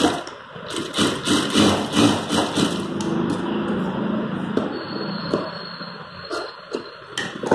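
Industrial lockstitch sewing machine stitching in short bursts over the first few seconds, then quieter, with a few sharp clicks of scissors trimming the thread.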